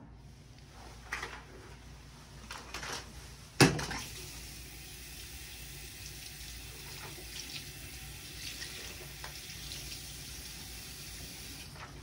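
A few clatters and a sharp knock about three and a half seconds in, then a tap running steadily into a small sink as a washcloth is wetted for hand washing.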